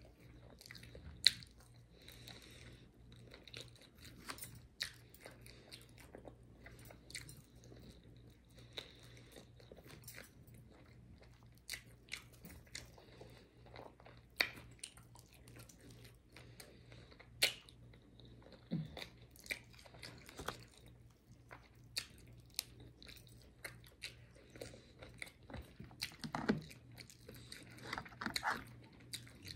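Close-up eating of fried chicken wings: irregular sharp crunching bites and chewing, with a few louder mouth sounds near the end.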